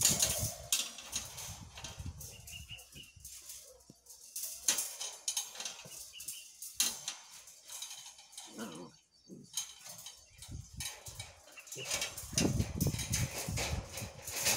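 Several puppies tussling and tugging at a cloth rag on concrete: cloth rustling and dragging, claws scrabbling, with a few short puppy growls about halfway through. A heavier low rumble comes in for the last few seconds.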